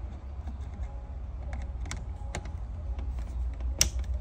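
Screwdriver working the terminal screw of a circuit breaker, making scattered light metal clicks and ticks, the sharpest near the end. A steady low hum runs underneath.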